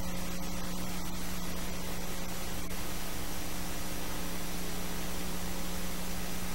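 Steady hiss with a low electrical hum, with no live sound from the scene: the noise floor of a soundtrack-less film transfer.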